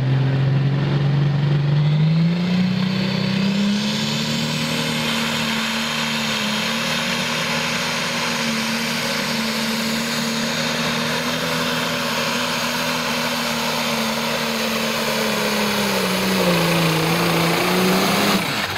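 Turbocharged diesel engine of a John Deere super/pro stock pulling tractor under full load, dragging a weight-transfer sled. The revs climb about two seconds in, hold high and steady, sag briefly near the end and pick up again.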